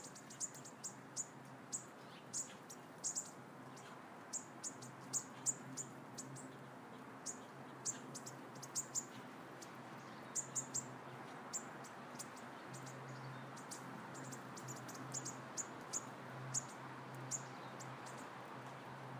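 Bird chirping: many short, high chirps at irregular intervals, over a faint steady low hum.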